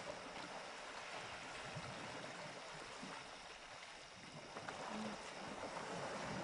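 Faint water sloshing and splashing from elephants swimming. It is a steady wash that swells a little over the last two seconds.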